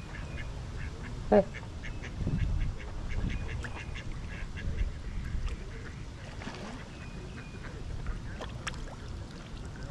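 Waterfowl calling: one loud call sliding down in pitch about a second and a half in, over many short, faint, high calls from the flock.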